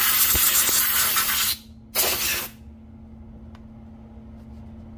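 Compressed-air blow gun blasting air into a chainsaw's clutch and sprocket housing to blow out built-up grime: a long hiss that stops about a second and a half in, then a second short blast about two seconds in.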